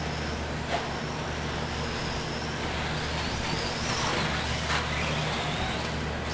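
The 21.5T brushless electric motor of a Schumacher CAT 3000 RC buggy whines high, its pitch rising and falling with the throttle as it laps. Two sharp knocks come about a second in and again near the end, over a steady low hum.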